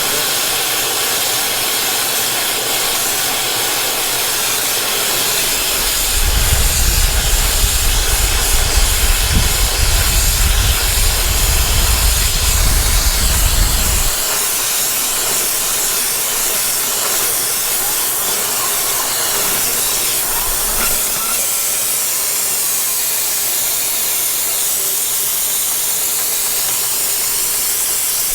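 Dryer vent cleaning equipment pushing air through the vent: a loud, steady rushing hiss. A deep rumble joins it from about six seconds in until about fourteen seconds in.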